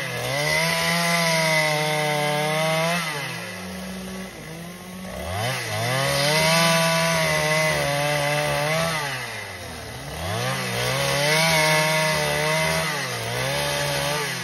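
Two-stroke chainsaw ripping lengthwise down a wooden board at full throttle. The engine note sags as the bar bites and climbs back, over and over, with two deep dips about a third and two-thirds of the way through.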